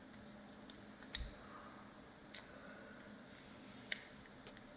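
Three faint, sharp clicks, about a second apart and more, as a small screwdriver works tiny screws into a wireless mouse's circuit board and plastic shell.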